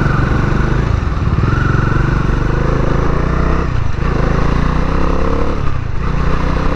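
Bajaj Dominar 400's stock-exhaust single-cylinder engine pulling under acceleration. The pitch rises, dips briefly at gear changes about four and six seconds in, then climbs again.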